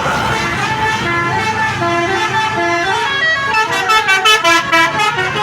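Basuri telolet horn, a multi-note musical air horn, playing a quick melody of short stepped notes that jump from pitch to pitch.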